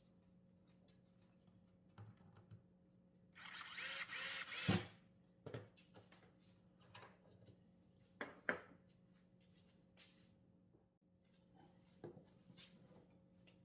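A cordless drill runs in one burst of about a second and a half, ending in a knock. Scattered light clicks and knocks of wood and tools being handled follow.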